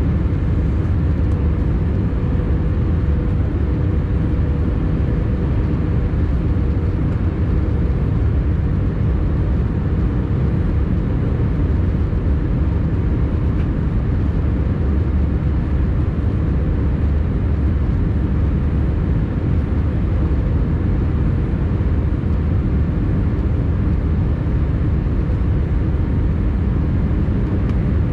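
Steady cabin noise of an Airbus A320-214 in flight: a deep, even rumble of rushing air and its CFM56 engines, heard inside the cabin. A faint steady hum fades away over the first several seconds.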